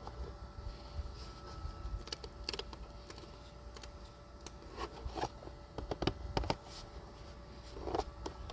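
Scattered plastic clicks and rustles of a welding helmet being handled and its headgear adjusted, in irregular clusters, over a faint steady hum.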